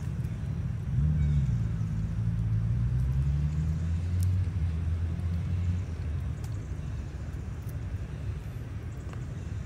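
A motor vehicle's engine running off-camera: a low drone that comes in about a second in, holds steady, and fades out about six seconds in.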